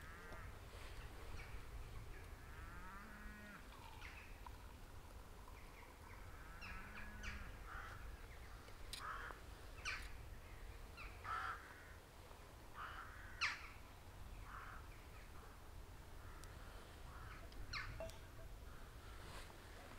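A bird calls three times in the first seven seconds, with rough, crow-like caws. In the second half come several sharp clinks and knocks of stainless steel mugs being handled and set down, the loudest about 13 seconds in, over a low wind rumble.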